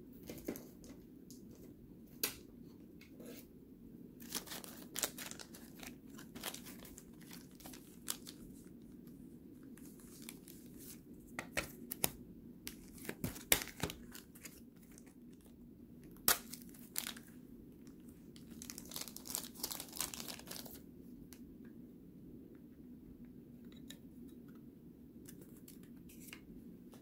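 Off-camera handling of trading cards and their wrappers: scattered rustles, crinkles and light clicks, bunched in a few busier spells, over a low steady hum.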